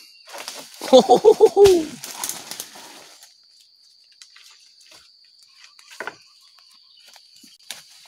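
Crickets keep up a steady high-pitched drone. About a second in there is a short burst of about six quick pitched pulses, the last one falling in pitch. A few faint rustles and clicks follow.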